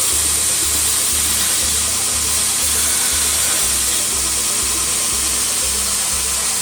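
Ameribrade 2x72 belt grinder running a 120-grit belt against steel: a loud, steady grinding hiss.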